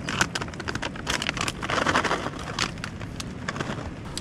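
Plastic snack packet crinkling as it is handled and shaken, in irregular crackles with a denser rustle about two seconds in.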